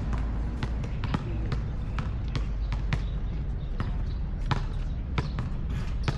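A basketball bouncing on a hard outdoor court, sharp irregular thuds about twice a second as it is dribbled, over a steady low rumble.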